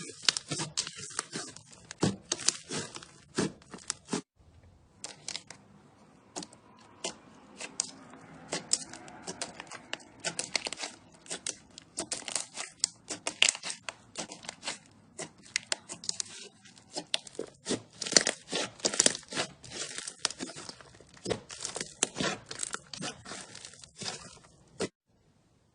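Slime being pressed, stretched and poked by hand, giving dense, irregular sticky crackles and pops. There is a short break about four seconds in, and the sound stops just before the end.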